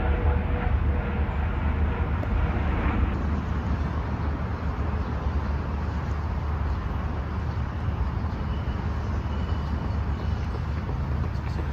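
Steady low outdoor rumble of distant traffic and wind in the microphone, with faint running footsteps on pavement starting just before the end.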